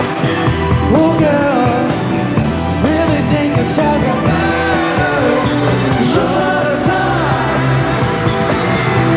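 Live pop music: a male lead singer's voice over a full band with a steady bass line.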